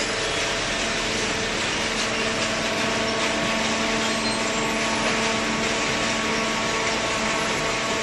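Industrial cardboard baling line running: the horizontal hydraulic baler and its belt feed conveyor give a steady machine hiss with a constant hum of several tones.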